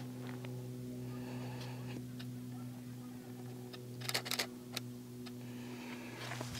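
DSLR camera shutter clicking: a quick run of several shots about four seconds in, with single clicks before and after. Under it is a steady low hum.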